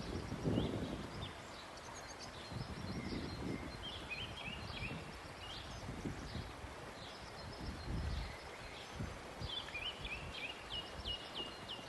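Small birds chirping, with runs of quick repeated high notes, over a background of low thuds and rustles, the strongest thud about half a second in and another around eight seconds in.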